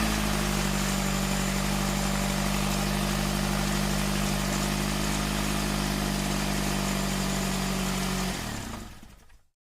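Suzuki Grand Vitara's J20A four-cylinder engine idling steadily with a misfire: the tremble and loss of power come from cylinder 3, whose ignition signal is almost gone through a broken cable. The sound fades out near the end.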